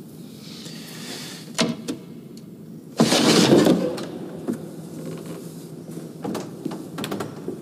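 A wooden confessional door being handled and opened: two sharp clicks, then a brief loud rush of movement about three seconds in, followed by a few light knocks.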